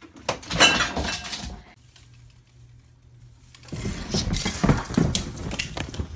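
Two bursts of crashing and clattering, like objects falling and breaking. The first is short and the second, a few seconds in, runs longer.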